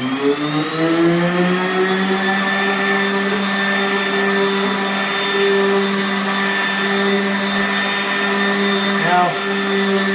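Electric random orbital sander spinning up, its pitch rising in the first second or so, then running at a steady high speed. About nine seconds in, its pitch dips briefly and recovers.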